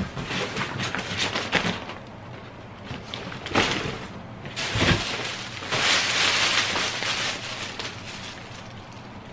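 Paper gift wrapping and cellophane rustling and crinkling as wrapped packages are handled and pulled out of a cardboard box, with a soft thump about five seconds in.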